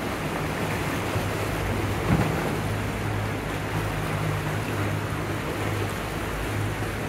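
Steady low drone of motorboat engines on the canal under a wash of water and wind noise on the microphone, with one short knock about two seconds in.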